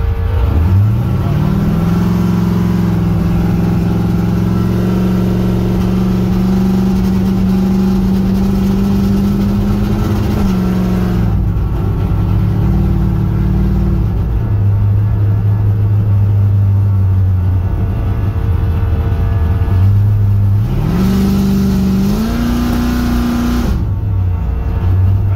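13.5:1 compression LS1 V8 engine revved up about a second in and held at steady high revs for around nine seconds, then dropping back to a lower steady speed. It is revved and held again for a few seconds before dropping back near the end.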